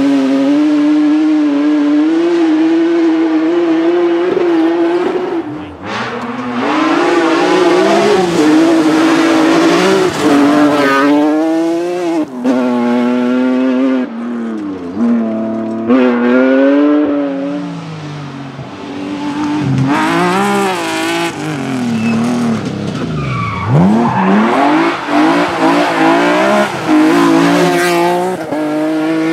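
BMW rally car engines driven hard at racing speed, the engine note climbing through the revs and dropping again and again at gear changes and braking.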